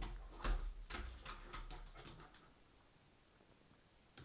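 A dog's claws clicking and paws thudding on a laminate floor and against a wall as it jumps up and lands. It is a quick run of taps and a couple of heavier thumps that dies away after about two seconds, with a few more claw clicks near the end.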